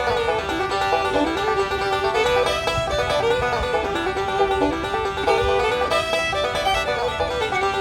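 Upbeat banjo music in a bluegrass style, quick plucked notes.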